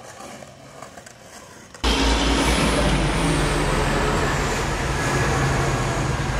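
Loud street traffic noise: a large vehicle's engine rumbling, with a high whine slowly falling in pitch. It starts abruptly about two seconds in, after faint background noise.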